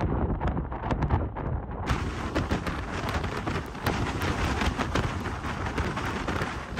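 Hurricane-force wind buffeting the microphone with a heavy low rumble and sudden gusts, over driving rain and rough storm-surge water. About two seconds in, the sound turns abruptly hissier and fuller.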